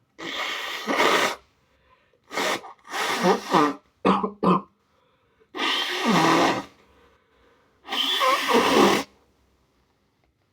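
A sick person coughing with a cold: about seven separate coughs, each a second or less, two of them in a quick pair about four seconds in.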